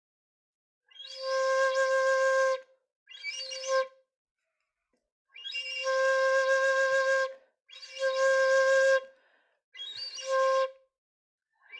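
Ranjo-brand 8 hon choshi shinobue, a Japanese bamboo transverse flute, sounding its lowest note in five breathy held blows at the same pitch, each one to two seconds long with short pauses between. The player finds this low note not as full as on her Rippei flute.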